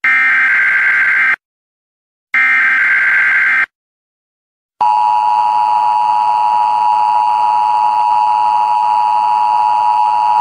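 Emergency Alert System tones: two bursts of harsh digital data noise from the alert header, each about a second and a half long with a second of silence between, then, about five seconds in, the steady two-tone attention signal that announces an emergency broadcast.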